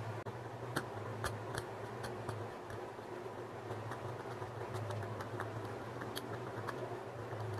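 Metal tweezer tip scraping and picking at a broken SMD LED chip on an LED bulb's circuit board, giving small irregular clicks and scratches, over a steady low hum.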